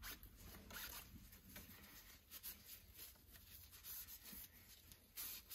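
Faint rubbing and scuffing as a rag wipes a freshly de-rusted steel combination square head resting on cardboard, in a series of soft, irregular strokes.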